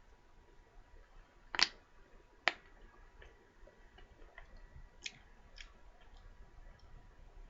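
Eating a chocolate macaron: two sharp, crisp clicks about a second and a half and two and a half seconds in, then a few fainter ticks and chewing noises.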